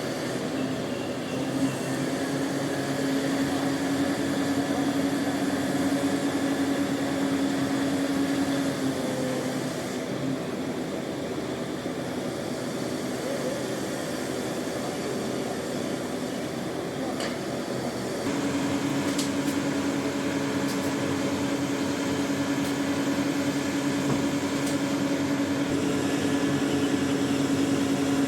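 Heavy crane machinery running steadily during a lift, a mobile crane's engine and hydraulics, with a steady hum that fades out about nine seconds in and comes back a little louder about eighteen seconds in.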